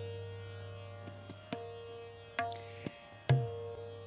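Background music in Indian classical style: single plucked notes about once a second, each ringing on, over a steady low drone.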